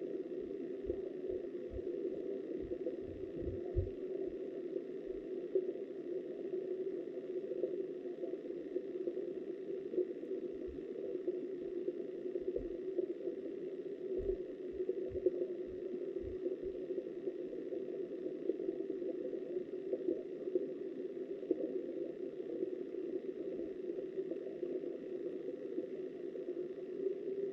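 Flowing river water heard through a submerged underwater camera: a steady, muffled rush. Soft, deep thuds come in clusters in the first few seconds and again around the middle.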